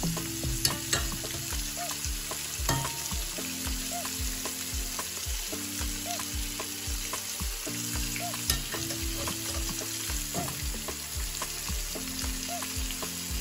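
Oil sizzling steadily as catfish fry in a pan, with a spoon scraping and clicking against a wire mesh strainer as palm nut pulp is pressed through. A soft music track with a steady beat runs underneath.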